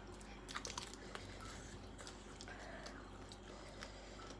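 Quiet chewing of food close to the microphone, with scattered small wet mouth clicks.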